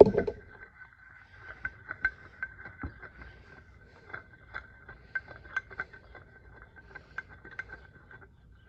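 Small metal clicks and clinks, irregular, about two or three a second, as the steel parts of a lathe compound slide (feed screw, shaft and nut) are handled and worked on, opening with a louder clunk. A faint steady whine sits under them and stops near the end.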